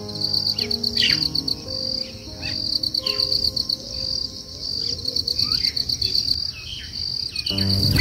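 Insects chirping in a steady, rapidly pulsed high trill, with short falling bird chirps now and then.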